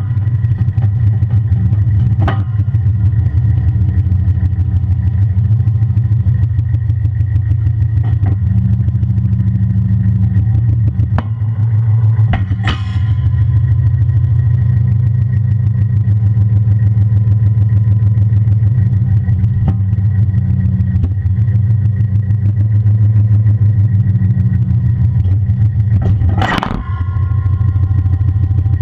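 Kubota tractor's diesel engine running steadily, with several metal clanks from the Quicke loader's quick attacher. The loudest clank comes near the end, as the spring-loaded attacher lever snaps over and both locking pins go in.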